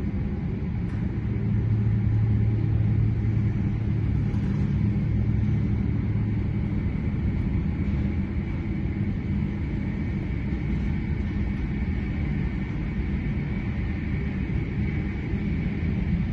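Jet aircraft engines running, a steady low rumble with a thin high whine above it; the rumble is strongest in the first few seconds and the whine grows slightly near the end.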